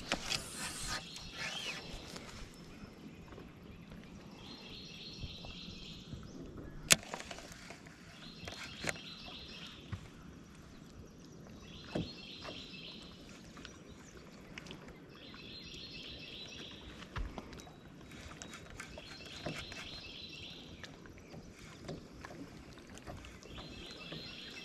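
A small songbird repeating a short, rapid trill every three to four seconds, with a few sharp knocks, the loudest about seven seconds in.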